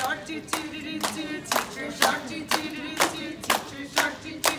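A small group of women sing a song together while clapping a steady beat, about two claps a second.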